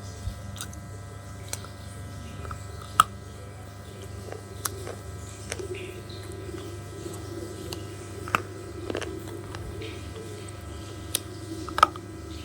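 Pieces of slate crunching as they are bitten and chewed, with sharp, separate cracks every second or two over a soft rustle. A steady electrical hum runs underneath.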